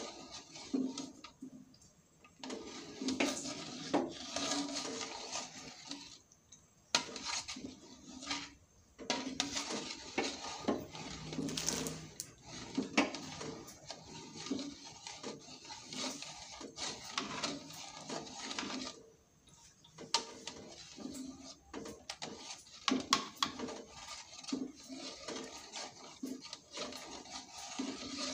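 Metal spatula scraping and clinking against an aluminium wok while stirring hot cooking oil with plastic melting in it, in irregular strokes broken by a few short pauses.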